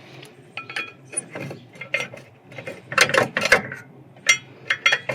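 Steel-backed brake pad being worked out of a car's rear caliper bracket, clicking and clinking against the metal bracket and its clips in a quick irregular series, some strikes ringing briefly and the loudest ones coming near the end.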